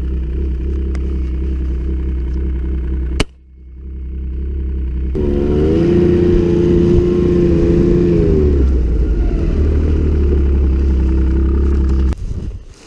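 Snowmobile engine running, its pitch rising and falling with the throttle. It cuts off abruptly about three seconds in, comes back revving up two seconds later, and stops suddenly near the end.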